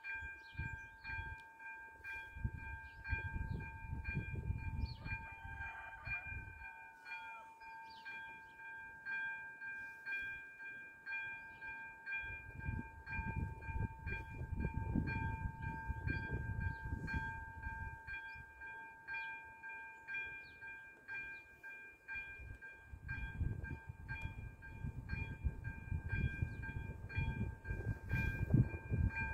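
Railway level-crossing warning bell ringing steadily, a high electronic ding repeated at an even rhythm while the crossing's red lights flash for an approaching train. A low rumble swells and fades several times underneath.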